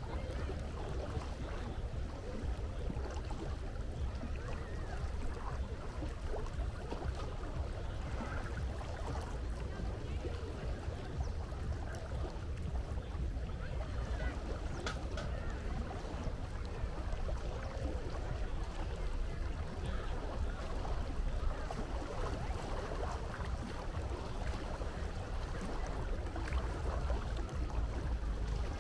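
Steady low rumble with the wash of sea water, and faint indistinct voices in the background.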